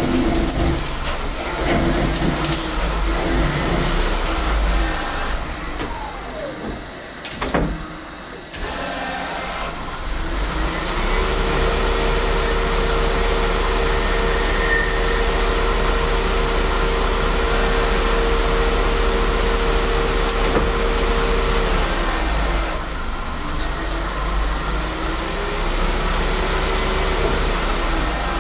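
Taian CNC lathe running a ball-stud turning program: a motor whine over cutting noise. The pitch slides down and back up about a quarter of the way in and again near the end, holding steady through the middle, with a sharp click shortly before the first change.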